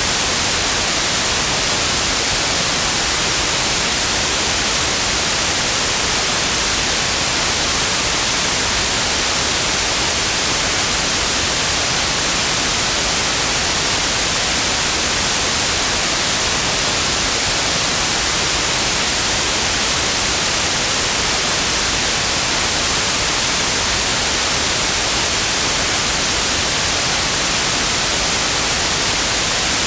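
Steady synthetic white noise: an even, unchanging hiss spread across all pitches, strongest in the high end.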